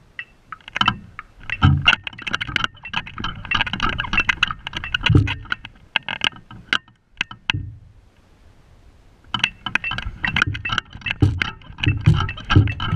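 Irregular clattering knocks and rattles close to a marching tenor drum set and its metal mount, the sound of the rig being handled and jostled rather than played. There is a quieter stretch about seven seconds in before the clatter resumes.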